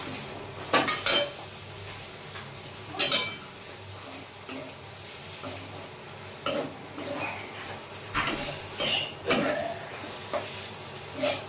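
A flat metal spatula scraping and clinking against a metal kadai while stirring a paneer, sweet corn and capsicum stuffing. The strokes come irregularly, the sharpest about a second in and about three seconds in, with a run of further scrapes in the last few seconds.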